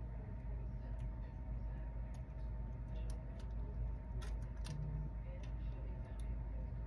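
Scattered small, sharp clicks of pliers and metal jewelry pieces knocking together as brooches are handled, mostly in the second half, over a steady low background hum.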